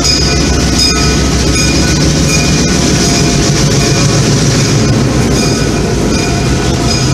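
Passenger train rolling slowly by behind an EMD F7A diesel locomotive: the locomotive's engine gives a steady low rumble as it pulls away, while the Pullman coaches' wheels click over the rail joints and a steady high squeal rises from the wheels.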